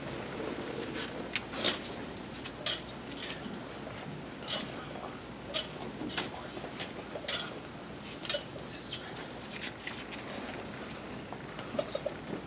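Metal thurible being swung during censing, its chains and lid clinking sharply about once a second.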